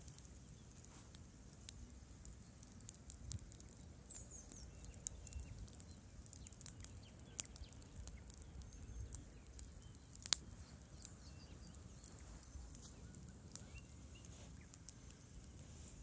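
Wood campfire crackling softly, with scattered sharp pops and one louder pop about ten seconds in, over a low steady rumble.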